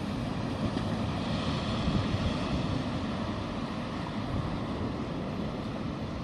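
Wind buffeting the microphone over the steady wash of sea surf, a continuous rumbling, gusting noise without distinct separate events.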